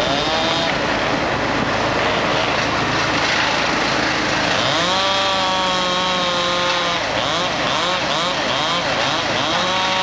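Chainsaw revving up and down over and over, held at full speed for about two seconds near the middle, over the steady drone of a larger idling engine.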